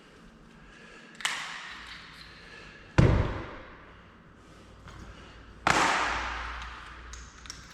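Three sharp knocks, about a second and a half to three seconds apart, the middle one the loudest and deepest, each dying away over a second or so.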